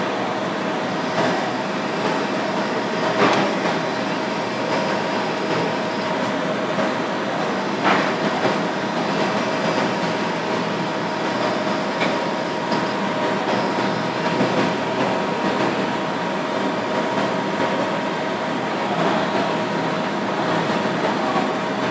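DMG Mori CTX 310 ecoline CNC lathe turning a small aluminium-looking rim, the spindle running and the tool cutting under flood coolant spray. It makes a steady whirring hum with a constant tone, with a couple of brief knocks.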